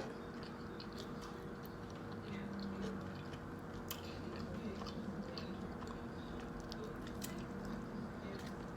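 A person chewing a mouthful of sandwich, with soft scattered mouth clicks over a faint steady room hum.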